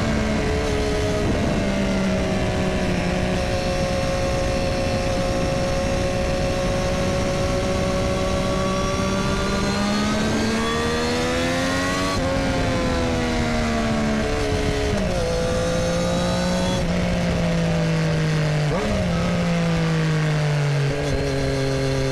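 Triumph Street Triple RS's 765 cc three-cylinder engine through an Arrow exhaust, heard from the rider's seat on the move: it runs at a steady pitch for about ten seconds, the revs rise briefly around twelve seconds in, then fall back in several steps toward the end, over a low rush of wind.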